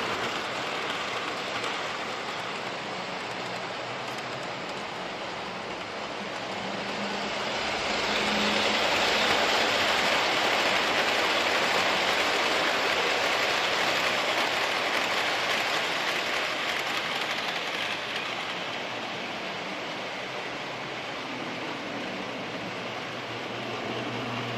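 Train passing, a steady rushing rolling noise that swells about eight seconds in and eases off again after about seventeen seconds, with a faint low hum underneath.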